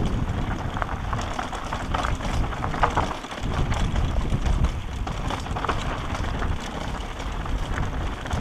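Wind buffeting a helmet-mounted microphone on a mountain bike descending a gravel track, with irregular crunching and rattling from the tyres and bike over loose stones.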